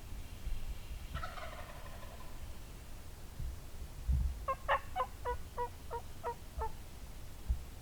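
Wild turkey gobbling once, a short rattling call about a second in, then a run of about eight evenly spaced turkey yelps a little past halfway.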